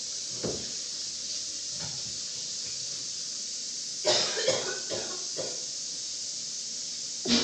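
A man coughing in harsh bursts, a fit of several coughs about four seconds in and a loud one near the end, over a steady hiss. The coughing is put on for a prank, faked rather than from illness.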